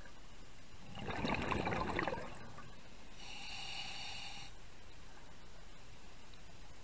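Scuba diver breathing through a regulator underwater. An exhale sends out a rush of bubbles about a second in, lasting about a second. Then an inhale hisses through the regulator with a steady whistling tone.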